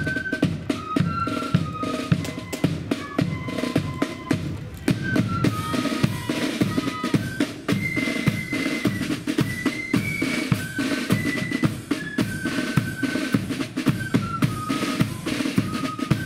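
Marching flute band playing a tune: flutes carry a high melody over snare drums and a bass drum beating steady time.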